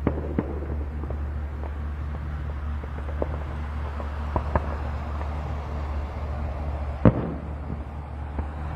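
Fireworks shells bursting, a scattered series of sharp bangs with echoing tails, the loudest about seven seconds in, over a steady low hum.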